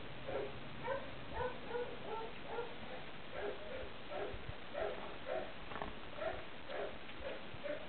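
An animal calling over and over in short, pitched calls, about two a second.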